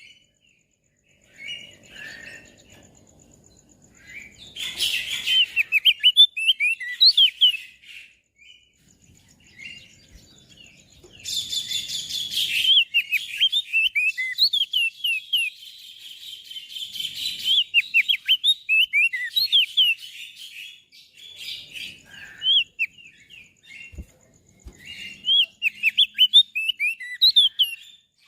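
Crested white-eye (opior jambul) singing: repeated phrases of fast, high, sweeping chirps with short pauses between them. Two brief rushing noises come about 5 seconds in and again about 11 seconds in, and two soft low knocks come near the end.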